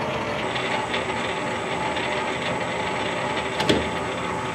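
Harrison metalworking lathe running steadily under power, its headstock gearing and lead screw turning, set up for screw cutting. A single sharp knock about three and a half seconds in.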